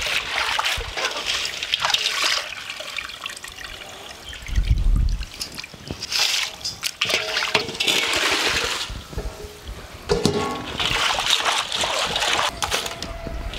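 Crayfish being swished and scrubbed by hand in a stainless steel basin of water, splashing and sloshing in bursts as they are rinsed until the water runs clear. There is a dull bump about four seconds in.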